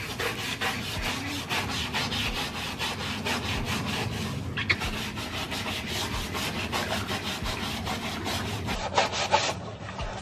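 Brush scrubbing a wet tiled terrace floor in rapid, rhythmic back-and-forth strokes.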